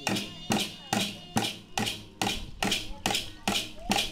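Music with a steady percussive beat, a sharp strike a little over twice a second, and faint gliding tones between the strikes.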